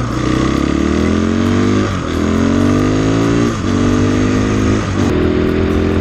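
Husqvarna 501 dual-sport motorcycle's single-cylinder four-stroke engine accelerating through the gears. The engine note rises and drops at each upshift, three times about two, three and a half and five seconds in, then holds steady at cruising speed, with wind noise from the ride.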